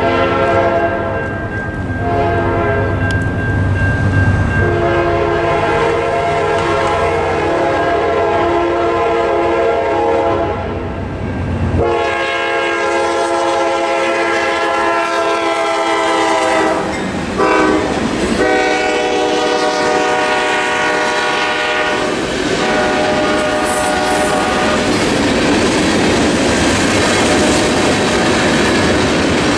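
GE Dash-9 freight locomotive horn sounding a series of long blasts for the grade crossing, its pitch bending down about two thirds of the way through as the locomotive passes. After the last blast comes the steady rolling clatter of freight tank cars crossing the road.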